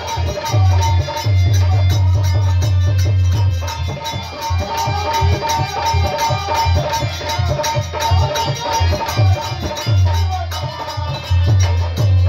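Live devotional Shiva music: harmonium with a hand-drum rhythm, a loud, driving beat under a steady melody.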